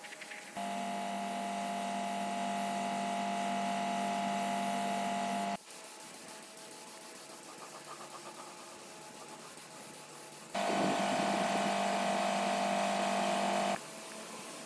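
A small electric motor-driven tool running steadily with an even hum, twice: about five seconds, then after a pause about three seconds, each starting and cutting off suddenly.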